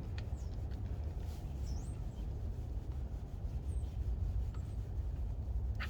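Steady low background rumble with a few faint clicks, and a short high chirp, likely a bird's, about two seconds in and again near four seconds.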